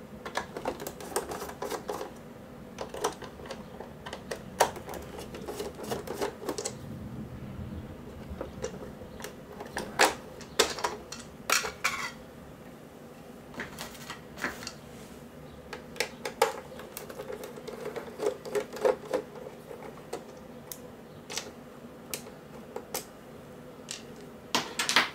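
Small Torx screwdriver backing screws out of a Zebra ZD410 label printer's plastic base, with irregular clicks and taps of the driver and plastic parts as a small cover plate comes off. A cluster of louder clicks comes about ten seconds in.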